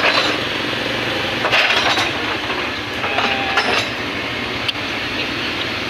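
Hydraulic excavator's diesel engine running steadily, with bursts of metallic clanking and scraping from the machine at work, three times.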